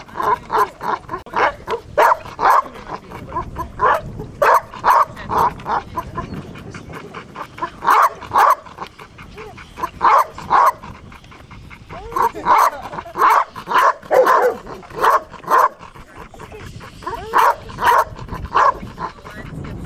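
Young Doberman barking repeatedly in quick runs of short barks with brief pauses between them. It is the dog being worked up by a helper during bite training.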